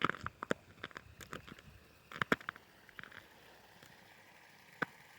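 Irregular crunches and clicks, bunched in quick clusters at the start and about two seconds in, with one sharp click near the end.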